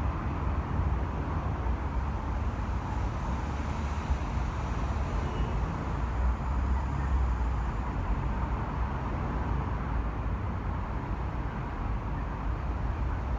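Steady traffic noise from a stream of cars on a multi-lane expressway: a continuous rumble of tyres and engines, heaviest in the deep bass.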